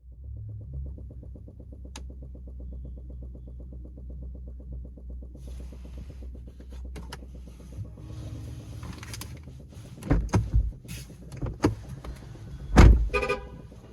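2019 Chevy Bolt giving off a low, steady hum with a fast, even pulsing: the continuous thumping from the brake booster that the car makes when switched on. This is a known brake booster control module software flaw. Several loud knocks and clunks come in the last few seconds, the loudest near the end.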